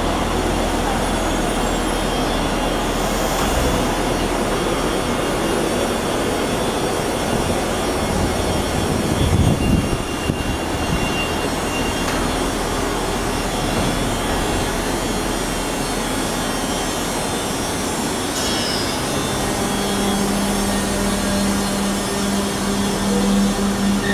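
TEC Charleroi light-rail tram pulling out of an underground station and running off down the line: a steady rumble throughout, with a brief heavier low rumble about ten seconds in. In the last few seconds a steady low hum joins in as the next tram comes in toward the platform.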